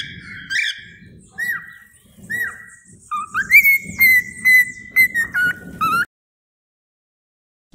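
Cockatiel calling and whistling: a few short down-slurred chirps, then from about three seconds in a quick run of whistled notes that cuts off suddenly. A single pop at the very end.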